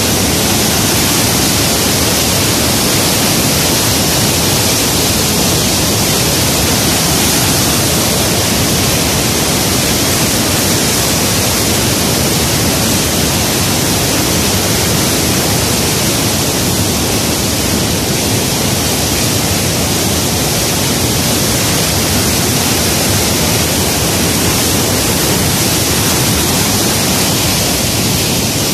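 Loud, steady rush of white water pouring down a steep concrete canal cascade, churning into foam.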